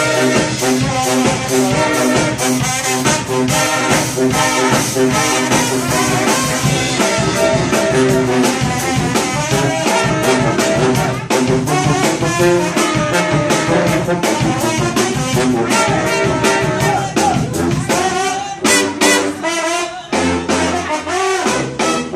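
Live brass band playing an upbeat tune: trombone, trumpet and saxophone over a steady drum beat, with a brief break in the groove near the end.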